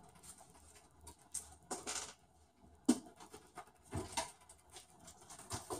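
Thick lentil gravy (chana dal kootu) simmering in a pressure-cooker pot, giving a few scattered soft pops and scratchy clicks.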